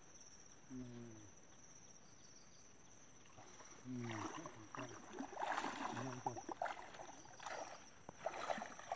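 Water sloshing and splashing as two men wade through a shallow pond and sweep a fine-mesh fishing net through it, getting busier about four seconds in. Brief voices, over a steady high insect buzz.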